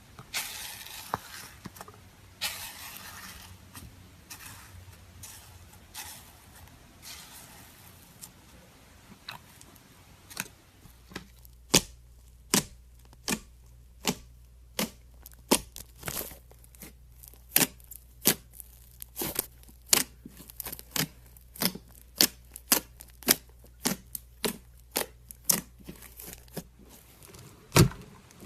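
Slime being handled: a crackly, stretching sound for the first several seconds, then a steady run of sharp clicking pops, nearly two a second, as it is pressed and squished.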